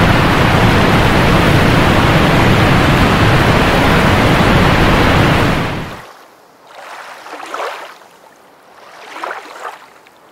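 Loud, steady rushing of water, cutting off abruptly about six seconds in. After that only faint, soft swishes of water are heard.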